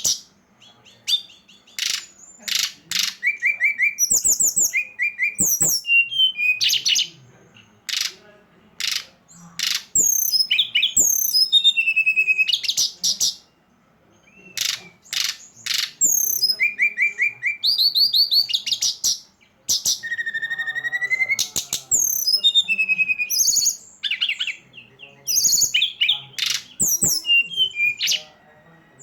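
Brown-chested jungle flycatcher (SRDC) song, played as a lure recording: a fast, varied run of high chirps, trilled phrases and sharp chipping notes, repeated in bursts with short pauses between.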